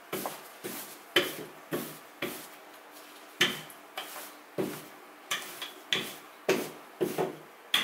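Wooden rolling pin rolled quickly back and forth over a thin sheet of dough on a floured countertop, about two strokes a second, with a short pause near the middle.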